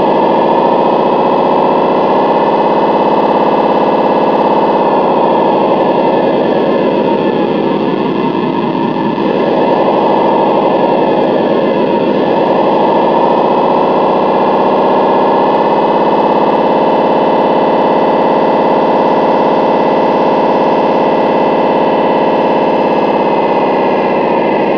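Electronic diesel engine sound module of an RC model tug, playing a working marine diesel through its loudspeaker. The loud, steady engine note falls and rises in pitch a few times as the throttle changes.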